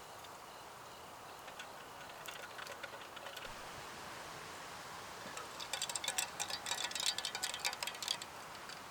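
Light clinking and jingling of small hard objects: a few scattered clinks about two seconds in, then a quick run of many clinks from about six to eight seconds in.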